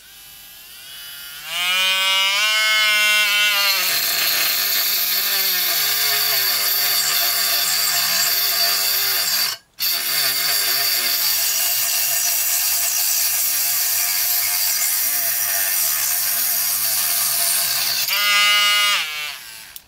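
WL-800 micro rotary grinder spinning a thin toothed saw disc, sawing through a 9 mm wooden dowel. Its motor runs free for a couple of seconds, then rasps through the wood with its pitch wavering and bogging under load, cutting out briefly about ten seconds in. The dowel is a bit much for it and the blade stalls now and again. Near the end it runs free again and stops.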